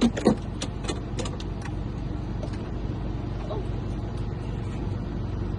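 A steady low hum of an idling vehicle engine, with several sharp clicks and taps in the first second and a half as a car key is handled and set up for reading.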